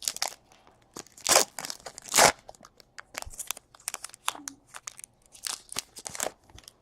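Trading-card pack wrappers being torn open and crinkled: a run of sharp crackles and rips, with two louder tears about a second and two seconds in.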